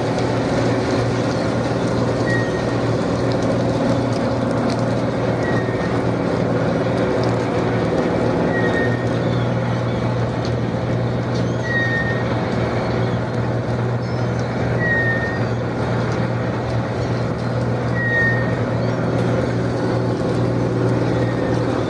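A shrimp trawler's engine runs steadily as a low, even hum. A short high squeak repeats about every three seconds.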